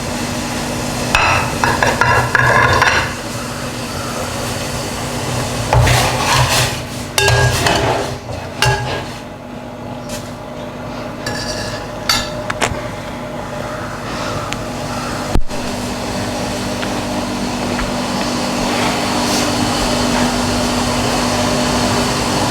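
Bursts of hard knocks and clatter from kitchen work: a few quick strikes, then a longer cluster midway, then scattered single knocks, over a steady low hum.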